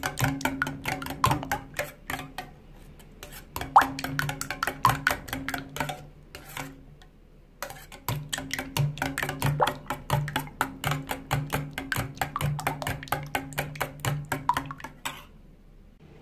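Eggs being beaten in a bowl: quick, uneven clicks of the utensil against the bowl in three runs with short pauses, over a low steady hum that stops with them.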